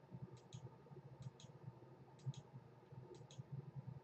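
Computer mouse button clicked four times at an even pace, each click a faint, sharp press and release, as the program is run again and again from the toolbar.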